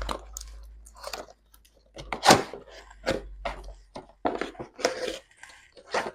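Packaging of a boxed coffee machine being opened and handled: irregular crackles, rustles and scrapes, the loudest about two seconds in.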